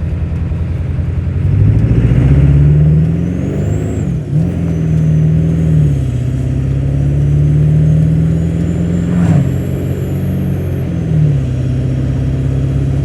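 1997 Ford Power Stroke 7.3 L turbo-diesel V8 pulling at highway speed, its pitch rising about two seconds in and then dropping back and settling several times, with a faint high turbo whine rising and falling over the engine.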